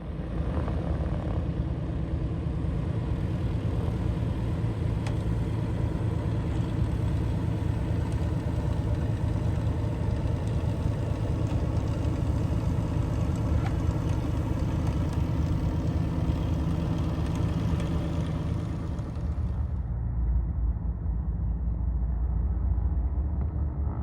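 The twin Lycoming O-540 flat-six engines and propellers of a Piper PA-23 Aztec running steadily. About twenty seconds in, the sound turns duller as the high end drops away abruptly.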